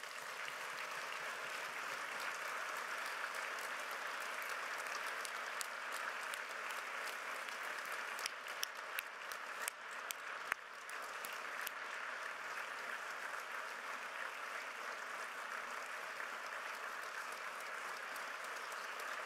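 Audience applauding steadily, with a few louder single claps standing out from the crowd about eight to eleven seconds in.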